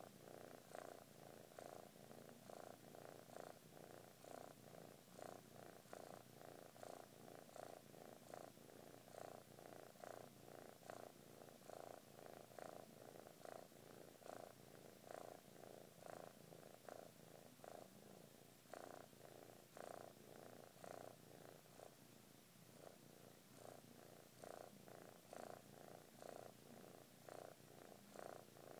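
Kitten purring faintly, a steady pulsing that rises and falls with each breath, about three pulses every two seconds.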